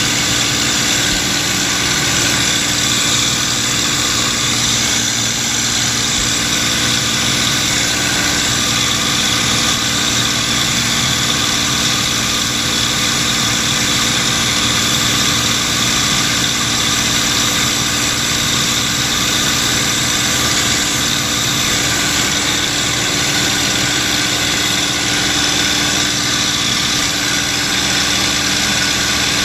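P-51 Mustang's Packard Merlin V-12 engine running steadily in flight, heard from inside the cockpit as an even drone with a hiss on top.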